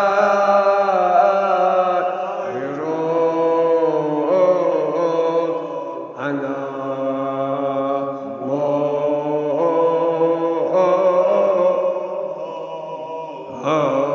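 An elderly man's solo voice chanting a Kashmiri marsiya, a Shia mourning elegy, in long drawn-out melodic phrases a few seconds each, with short breaks for breath between them.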